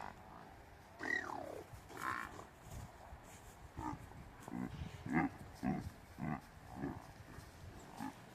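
Water buffalo calling: one falling call about a second in, then a run of short grunting calls about half a second apart.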